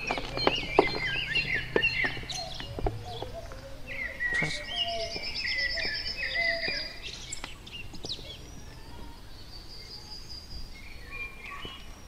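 Several birds chirping and calling, with a fast trill of repeated notes a few seconds in, quieter toward the end. A few sharp clicks in the first few seconds come from hands pressing gritty soil into a bonsai pot.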